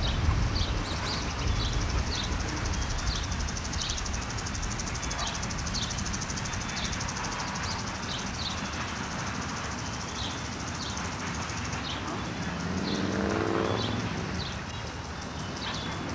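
Freight train rolling past: its wheels click over rail joints in a steady clickety-clack over a low rumble. About twelve seconds in, a rising pitched drone swells briefly and fades.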